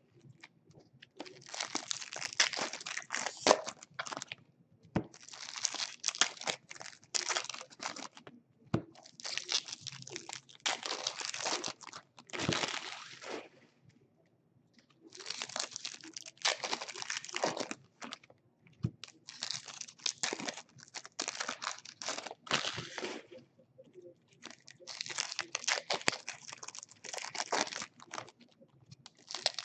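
Baseball card pack wrappers being crinkled and torn open by hand, in bursts of a few seconds with short pauses between them.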